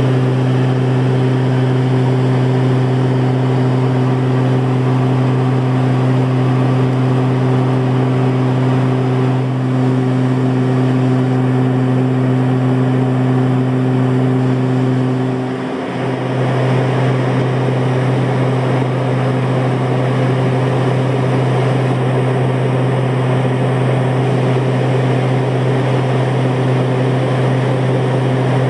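Cessna Conquest's twin turboprop engines and propellers running, heard inside the cabin in level flight: a steady low drone with a few even overtones over rushing air noise. The drone dips briefly about halfway through.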